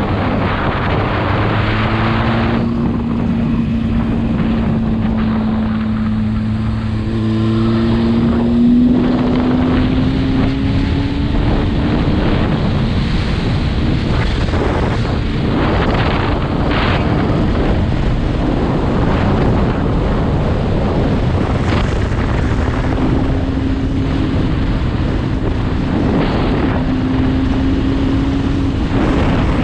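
Motorcycle riding at road speed, with heavy wind buffeting on the microphone over the engine. The engine note climbs as the bike accelerates several seconds in, then holds fairly steady.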